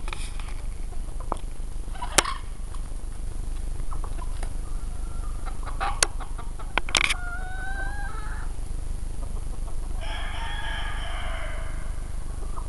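Chickens calling in a flock: a short rising call about seven seconds in, then a rooster crowing once, about a second and a half long, near the ten-second mark. A few sharp clicks and a steady low rumble lie under it.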